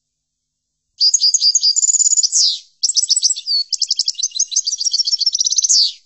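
European goldfinch singing: a fast twittering song of rapid trills, buzzy notes and quick falling sweeps. It starts about a second in, breaks briefly near the middle and stops abruptly at the end.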